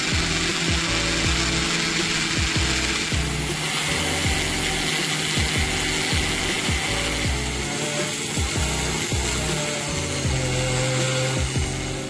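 A small power tool working silver, a steady gritty hiss, over background music with a steady beat.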